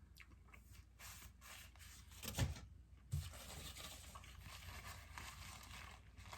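Faint eating and food-handling sounds: soft tearing and rubbing with small ticks, and two short knocks a little under a second apart near the middle.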